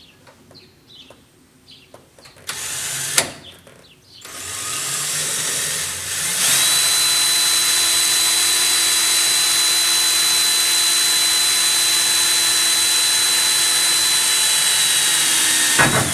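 Cordless drill boring a small pilot hole through the sheet-metal side wall of a pickup bed. After a short spurt and a click, the drill runs up and cuts steadily for about ten seconds with a high, even whine, then stops near the end.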